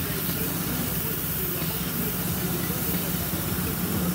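A motor running steadily: a constant low hum with a hiss over it.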